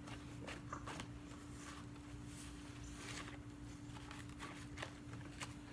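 Cloud slime being squished and stretched by hand, giving faint irregular sticky crackles and clicks over a steady low hum.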